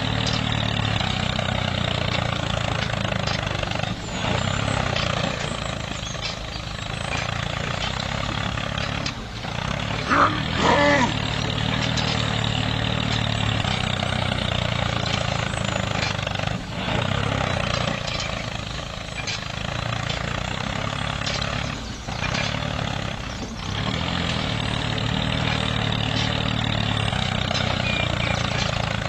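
Tractor engine running steadily, with a brief louder sound of gliding pitch about ten seconds in.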